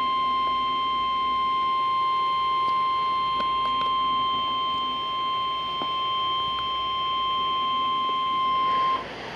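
NOAA Weather Radio warning alarm tone: one steady, high-pitched tone held for about nine seconds, then cut off suddenly, leaving radio hiss. It is the Emergency Alert System signal that an urgent warning, here a severe thunderstorm warning, is about to be read.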